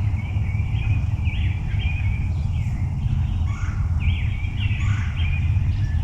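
Songbirds singing in the dawn woods, short warbled phrases with rising and falling whistles repeated every second or so, over a steady low rumble.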